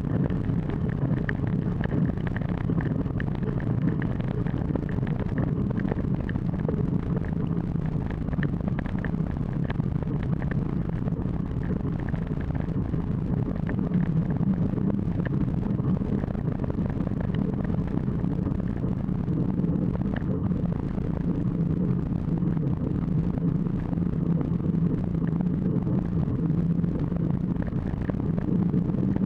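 Steady wind rush on a mountain bike's low-mounted camera microphone, mixed with the knobby front tyre rolling on asphalt as a constant low drone.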